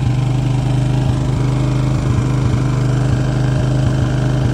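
1985 Suzuki 230S quad's single-cylinder four-stroke engine idling steadily, its idle turned up a little, which makes it a little loud.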